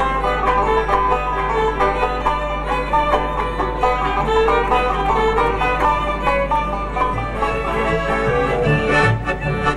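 Lively bluegrass-style string-band music with fast picked banjo notes and fiddle, over a steady low hum. Lower bass notes join in during the last few seconds.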